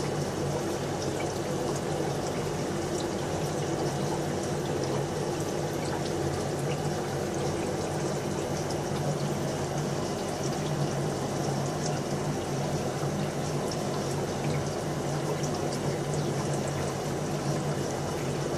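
Aquarium sponge filter bubbling: a steady stream of air bubbles rising and breaking at the water surface, with a low steady hum underneath.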